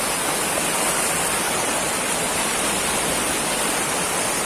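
Heavy, fast-flowing water rushing steadily, an even, constant noise with a strong hiss.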